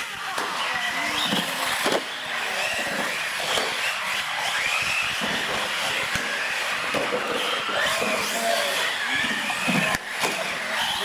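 Small electric RC trucks racing on a smooth concrete floor: their motors whine, rising and falling in pitch with the throttle, over tyre scrub and background chatter.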